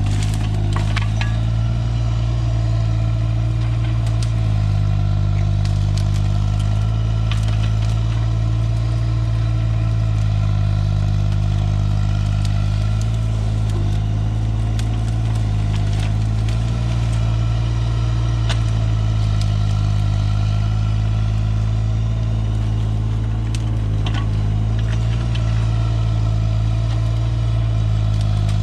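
Compact earthmoving machine's engine running steadily under varying load, with scattered metallic clanks and knocks from the machine working.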